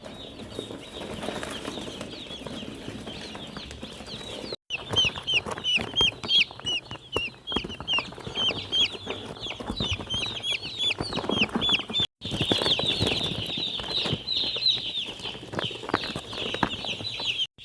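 Many chicks peeping together: a dense chorus of short, high, falling peeps, several a second and overlapping, with a few knocks and scuffles beneath. It cuts out briefly twice.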